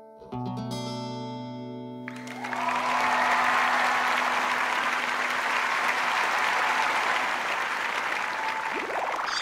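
An acoustic guitar's final chord is struck and rings out, then applause takes over about two seconds in. Just before the end a rising, gliding sound effect begins.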